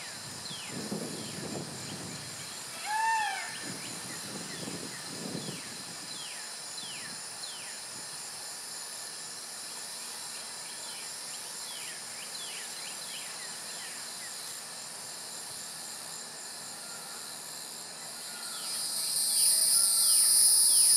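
An evening insect chorus: a steady high drone with many short falling chirps, the drone swelling much louder about eighteen seconds in. In the first six seconds there are a few low whooshes of herons flapping their wings on the nest, and a single short rising-and-falling bird call about three seconds in.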